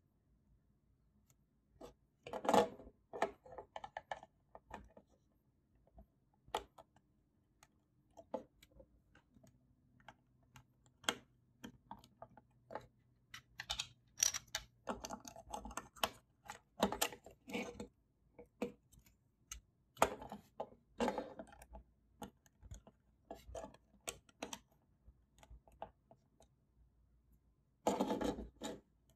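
Plastic Lego bricks being pressed together and handled: irregular clicks, snaps and small plastic clatters. The loudest clusters come a couple of seconds in and near the end, as the assembled car is picked up and turned.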